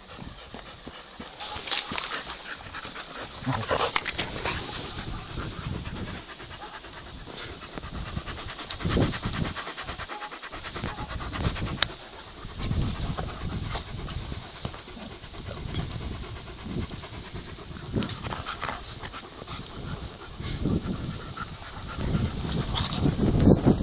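Alaskan Malamute panting in uneven, breathy huffs.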